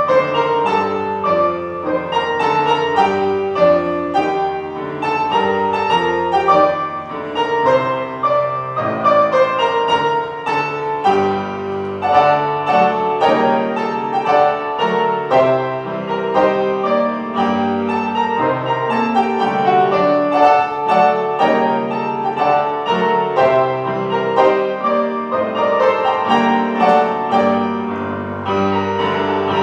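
Piano playing a Christmas medley: a steady flow of notes and chords.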